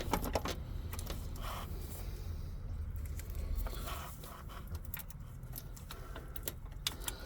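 Light metallic scraping and scattered small clicks of a starter mounting bolt being turned by hand into its threaded hole, over a steady low background rumble.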